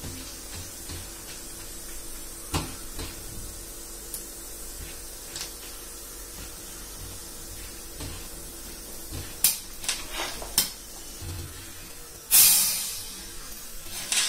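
Corn kernels and melting Skittles frying in oil in a wok while being stirred, with scattered sharp clicks from the pan. Near the end comes a sudden loud hiss that fades over about a second.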